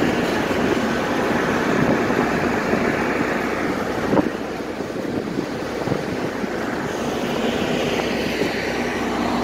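Steady drone of a river car ferry under way, mixed with wind noise on the open deck, and a single knock about four seconds in.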